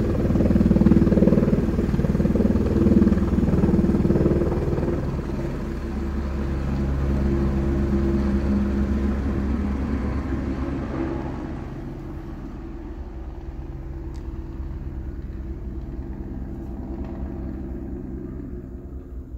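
Eurocopter AS350 B2 AStar helicopter's rotor and single turbine engine, loud as it lifts a slung load on a longline, then fading steadily as it flies away. Heard from inside a hangar through window glass.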